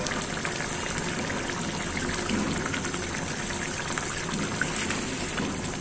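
Thick fish curry bubbling steadily as it simmers in a kadai, with many small pops; the curry is cooked down and done.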